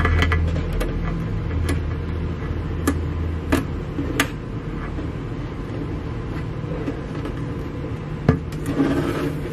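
Scattered light clicks and taps of fingers pressing a self-adhesive LED strip onto the wooden inner panel of a bookcase, over a low steady hum that fades within the first few seconds.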